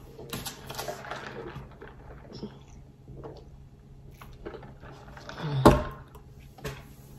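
Quiet eating and drinking sounds: sipping a drink through a straw from a paper cup, with small mouth clicks. A single thump about five and a half seconds in is the loudest sound.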